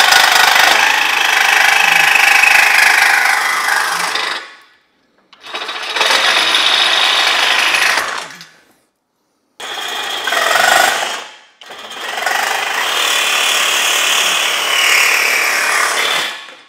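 Power cutting tool run in four bursts of a few seconds each, cutting off the protruding ends of mounting hardware that stuck down and were rubbing the ATV's plastic. Its pitch sags during the longer runs as it bites in.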